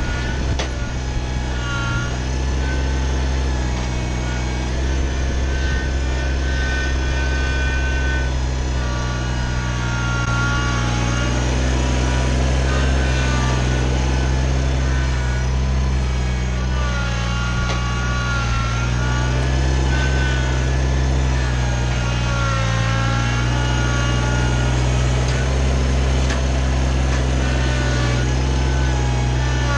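Kubota BX25 tractor's three-cylinder diesel engine running steadily, with higher whining tones that waver up and down over it.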